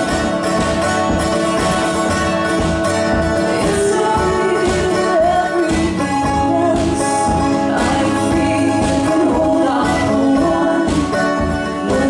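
Live acoustic folk song: a woman singing lead over a strummed acoustic guitar and mandolin.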